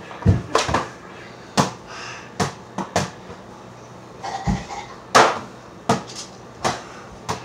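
A series of about a dozen sharp thumps and knocks at uneven intervals, the loudest about five seconds in.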